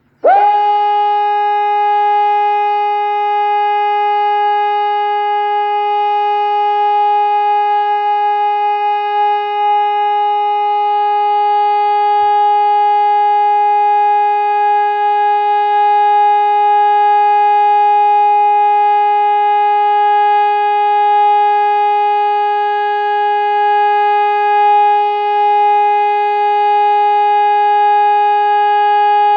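PSE Electronics EPS 500 single-tone electronic civil-defence siren switching on about a third of a second in, sweeping up to pitch almost at once and then sounding one loud steady tone: Luxembourg's "Test" signal, a continuous tone held for two minutes.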